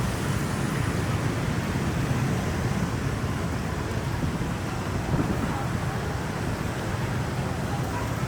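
Steady street noise: a hum of traffic with a crowd's voices mixed in.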